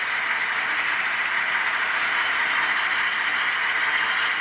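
HO scale model freight cars rolling past on the adjacent track: a steady rolling rattle of small wheels on rail with faint ticks, over a low steady hum from the model railroad.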